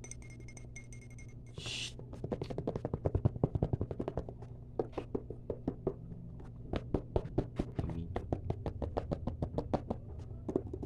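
Fast ASMR tapping, several sharp taps a second in quick flurries, starting about two seconds in after a few faint light ticks and a brief hiss.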